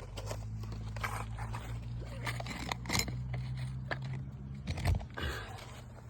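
Scraping and a few sharp knocks from work on an asphalt shingle as the roofer starts fitting roofing nails, over a steady low hum that stops about five seconds in.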